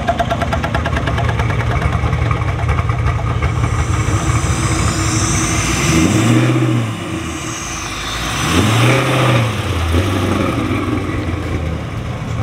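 Classic Chevy II's engine running with a steady rumble, revved up and back down twice, around six and nine seconds in, as the car pulls away.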